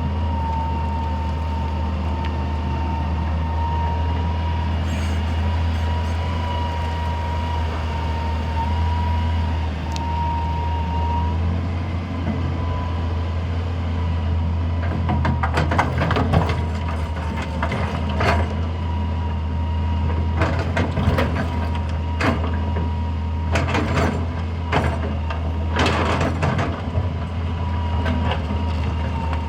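Hitachi EX200 excavator's diesel engine running steadily under a high hydraulic whine. From about halfway on come repeated clanks and scrapes as it works.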